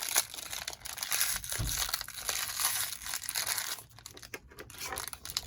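Small plastic toy wrapper crinkling and crackling as it is handled and torn open.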